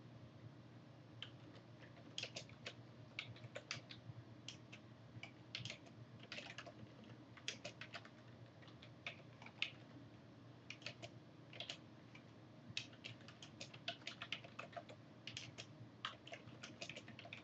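Typing on a computer keyboard: faint, irregular keystrokes, some in quick runs with short pauses between, over a low steady hum.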